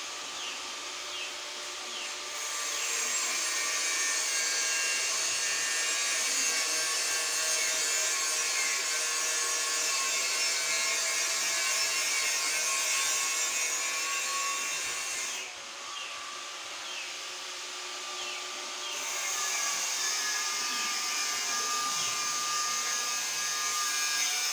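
Steady noise of a power tool or motor running with a hissing top, softer for the first two seconds and again for a few seconds past the middle.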